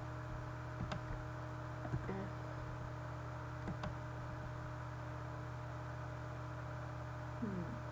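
Steady low electrical hum with a few light computer mouse and keyboard clicks: a small cluster about a second in, one near two seconds, and a couple near four seconds.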